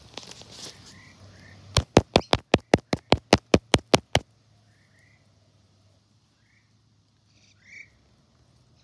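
A rapid, even run of about fourteen sharp clicks, about six a second, lasting some two and a half seconds, followed by a few faint short chirps.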